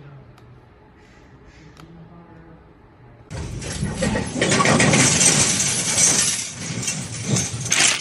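Faint low hum, then from about three seconds in a loud, steady rushing noise from a heavy cargo truck running close by. The noise eases off near the end.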